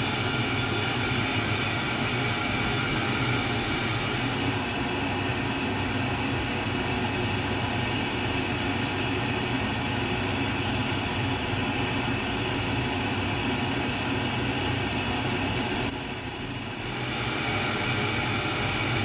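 Fiber laser back-glass removal machine and its fume extractor running, a steady whirring hum with several constant tones; it dips briefly about three-quarters of the way through.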